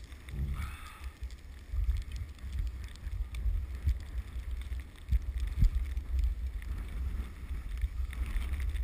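Wind rumbling unevenly on the microphone of a camera carried by a moving skier, with a faint hiss of skis sliding on packed snow.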